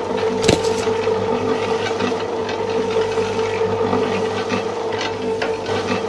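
A small motor whines steadily, with light scraping and rubbing over it and a few clicks.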